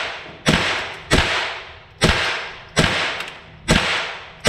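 Ruger AR-556 rifle firing .22LR rounds through a CMMG conversion kit, semi-automatic shots in a steady string of about six, one every three-quarters of a second or so. Each sharp crack trails off in a long echo.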